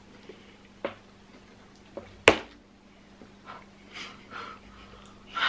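Handling noises while eating takeaway pizza: a few light knocks and one sharp click a little over two seconds in, then a few short breathy sounds.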